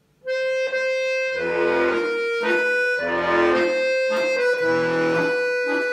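Bayan (Russian chromatic button accordion) playing a waltz passage with both hands together: long held right-hand melody notes over left-hand bass notes alternating with chords.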